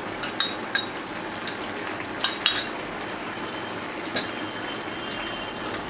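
A spoon clinks and scrapes against the dish a few times, loudest about two seconds in, as prawns are tipped into a pan of jackfruit and prawn curry. Under it the curry simmers with a steady bubbling hiss.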